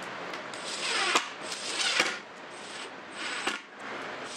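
Makita 18V cordless driver running in several short bursts as it drives hinge screws into a wooden cabinet door, with a sharp click as a screw seats.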